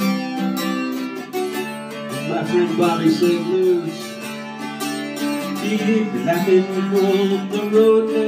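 Acoustic guitar music: chords strummed steadily in an instrumental passage.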